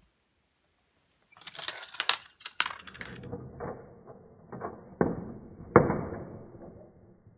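A plastic GraviTrax marble run in motion. Marbles roll and clatter along the track and the zipline, with a string of sharp knocks, the loudest about six seconds in.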